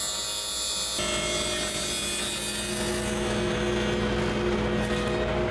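Table saw with a half-inch dado stack cutting box joints through stacked plywood in a box joint jig. The sound changes abruptly about a second in, then runs as a steady motor hum with a held whine.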